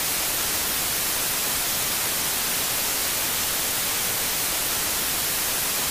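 TV static sound effect: a steady hiss of white noise at an even level, brightest in the high end.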